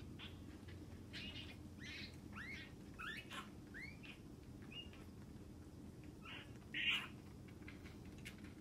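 Bobcat kittens giving a string of short, high chirping mews while being bottle-fed, each call sliding up and back down in pitch, most of them in the first half. A brief, louder noisy burst follows about seven seconds in.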